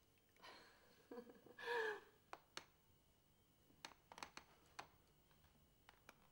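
A woman's breathy exhale, then a short voiced sigh falling in pitch about two seconds in. Faint scattered clicks follow.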